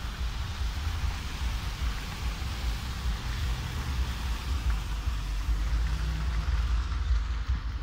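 Outdoor background noise: a steady, unevenly fluttering low rumble with a fainter hiss over it.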